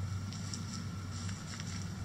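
Chicken-yard ambience: a steady low rumble with a few faint, brief high chirps, and light pecking and scratching by hens in the litter.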